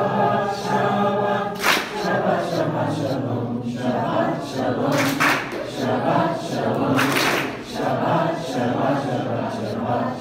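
A choir singing, with long held notes and crisp 's' consonants cutting through now and then.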